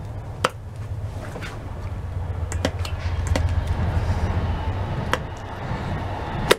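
Metal parts of a Weasel starter motor clicking and knocking against each other about five times as it is fitted together by hand, over a steady low hum.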